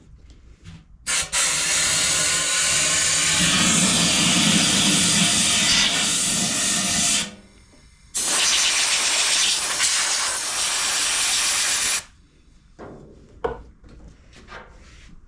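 Compressed air blasting from an air nozzle in two long bursts, the first about six seconds and the second about four, each cutting off sharply. It is blowing out the drained fuel system of a small two-stroke generator.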